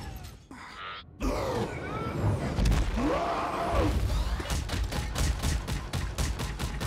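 Film fight sound effects: a crash of breaking debris starting about a second in. From about halfway on, a rapid run of heavy punch impacts, about four a second, as an armoured metal fist pounds a body into the pavement.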